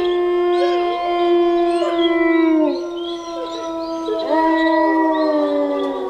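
Wolves howling in chorus: several long howls held at different pitches overlap, one sliding down in pitch about halfway through and fresh howls rising in about two-thirds of the way in.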